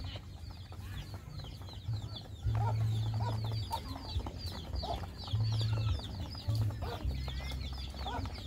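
Chicks peeping continuously in rapid high chirps, with a few short, lower clucks from the older chickens now and then. A low hum comes and goes underneath, loudest in several stretches lasting about a second.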